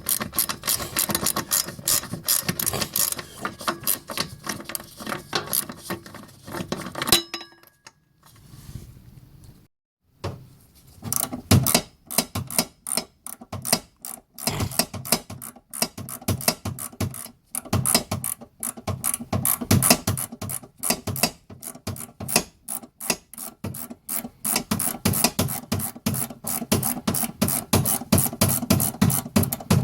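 Facom Quatro 4-in-1 ratcheting spanner, its ratchet clicking rapidly and repeatedly as it is worked back and forth. The clicking stops for about three seconds roughly a quarter of the way in, then carries on.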